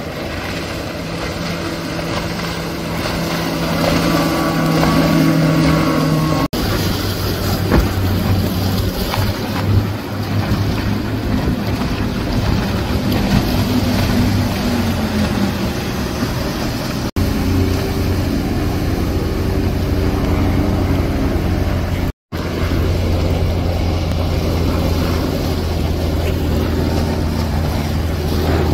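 Outboard engines of center-console boats running at speed through an inlet, over a steady rush of noise, in several clips that break off abruptly three times. In one pass the engine note slides down as the boat goes by.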